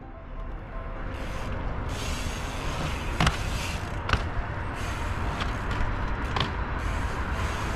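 Bike tyres rolling on stone paving with a steady rush of wind noise, broken by four sharp clacks, roughly a second apart, as the BMX lands and taps on the ground during a 180 and 180-tap trick.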